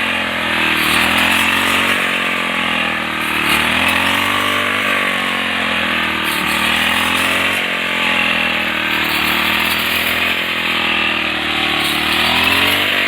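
Four-stroke petrol brush cutter engine running fast while cutting wheat, its pitch rising and falling every second or two.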